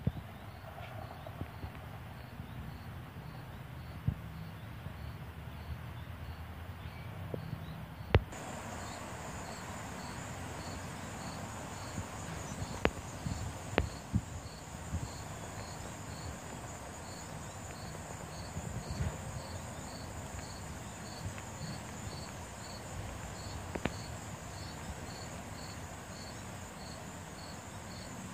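Insects calling: a high, regular chirp repeating a little under twice a second, joined about eight seconds in by a steady high buzz. Under them is a low outdoor rumble, broken by a few sharp clicks.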